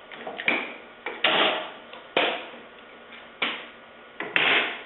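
Workshop handling noises: about five knocks and scrapes, roughly a second apart, as a workpiece and its clamps are shifted on a table saw sled.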